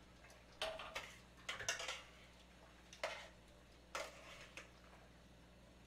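Metal kitchen tongs clinking against a stainless steel pan while lifting pasta: a handful of light, separate clicks spread over about five seconds.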